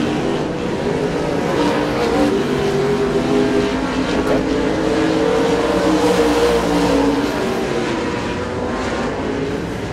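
A pack of USRA Modified dirt-track race cars' V8 engines running at racing speed, several engine notes overlapping and rising and falling as the cars go around the track.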